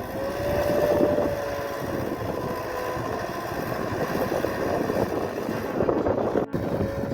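An engine running steadily with a faint wavering whine, likely from snow-clearing machinery or a vehicle. The sound cuts out for a moment about six and a half seconds in.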